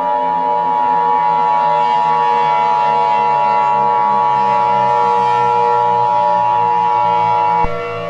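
Emergency Alert System attention signal: a loud, steady electronic alert tone held for about eight seconds that cuts off suddenly near the end, over a low steady drone.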